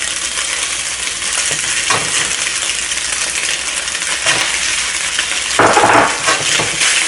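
Pork and egg sizzling in a hot oiled pan while a metal spatula scrapes and clinks against it, stirring in cooked jasmine rice. A louder stretch of sizzling and scraping comes about five and a half seconds in.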